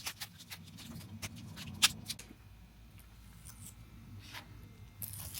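Faint scattered clicks and small crackles of old, sun-cracked vinyl decal being picked and peeled off a van's painted panel, with one sharper click a little under two seconds in and a short scratchy rasp near the end.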